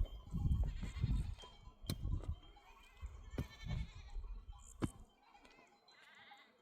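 Goats bleating: three separate quavering bleats, about a second, three and a half seconds and six seconds in. An intermittent low rumble fades out after about five seconds.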